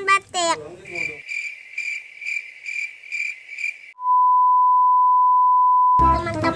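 A cricket-chirping sound effect, about three chirps a second over dead silence, then about four seconds in a loud steady test-card beep lasting two seconds. The beep cuts off sharply as children's music and a voice come back.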